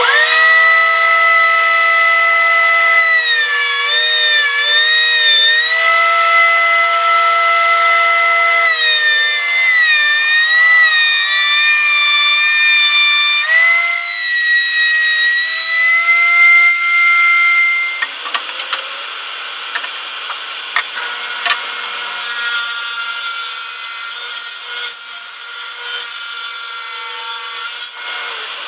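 DeWalt benchtop thickness planer running with a loud high whine. The pitch dips and wavers in several stretches as boards are fed through and the knives cut. After about 18 seconds the whine gives way to a quieter, hissing noise of machine cutting.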